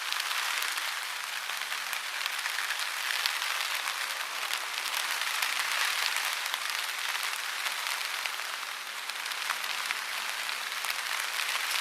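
Heavy rain falling steadily: a dense hiss full of sharp individual drop hits.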